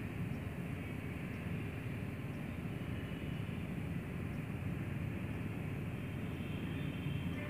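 Steady background rumble with a faint hiss, even throughout, with no distinct events.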